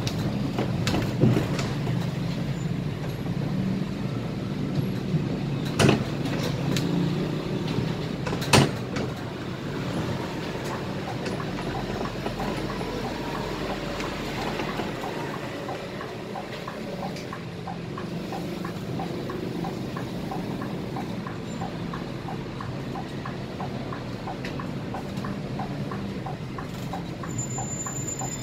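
Articulated city bus (Scania K320 IA) heard from the driver's cab while under way: a steady engine hum with road noise. Three sharp knocks or rattles come in the first nine seconds, and a regular light ticking runs through the second half.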